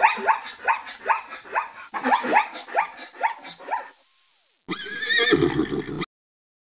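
Plains zebras calling: a rapid series of yelping, horse-like barks, about three a second, for about four seconds. A short, different sound follows about five seconds in before the audio cuts out.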